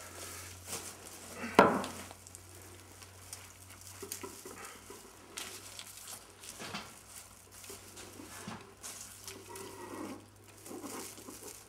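Fir sprigs rustling, their needles brushing and crackling as they are tucked into an advent wreath and bound on with wire. One sharp knock comes about one and a half seconds in.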